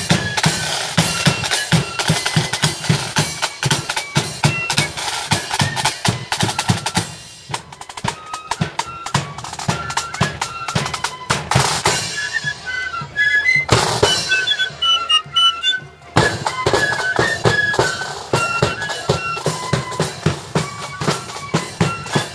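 Marching flute band playing: flutes carry the tune over a steady beat of side drums and bass drum. The drumming thins out briefly around eight seconds in, and the sound dips sharply for a moment near sixteen seconds before the band comes back in.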